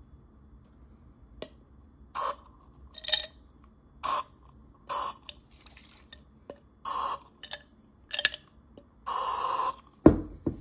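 Aerosol can of furniture polish spraying into a small glass jar of plastic windshield pieces in six short hissing bursts, then one longer spray. A sharp knock follows at the very end.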